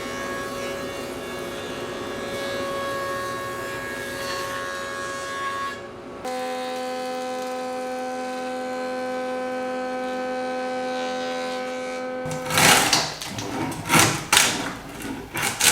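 A woodshop power tool runs at a steady pitch. It cuts abruptly to another tool running steadily at a lower pitch. Then, from about two-thirds through, come loud uneven strokes of a tool scraping and shaping wood.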